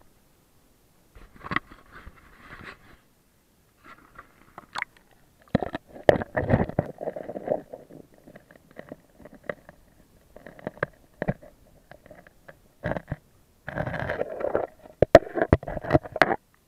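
Muffled underwater sound from a camera held beneath the surface of a shallow, stony river: irregular clicks and knocks with bursts of gurgling rumble.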